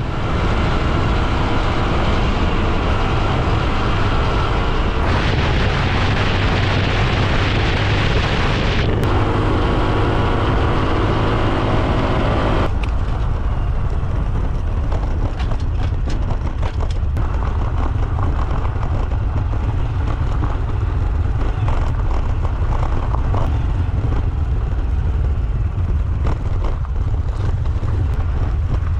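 Honda CT125 Hunter Cub's single-cylinder engine running on the move, buried under heavy wind rumble on the microphone. The hiss brightens about five seconds in and drops away near the middle.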